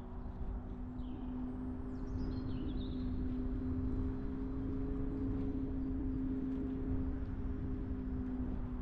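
Car engine and tyre noise while driving: a steady engine drone over a low road rumble, getting a little louder through the middle and easing off near the end.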